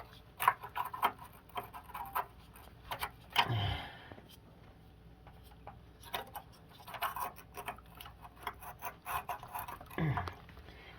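Irregular small clicks and taps of hands working the thermostat back into its clips on an electric water heater and handling its wires and screws. There is one brief louder knock about three and a half seconds in.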